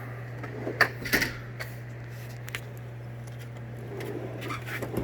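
Scattered sharp clicks and knocks of metal hand tools and a steel toolbox drawer being handled, the loudest about a second in and a cluster near the end, over a steady low hum.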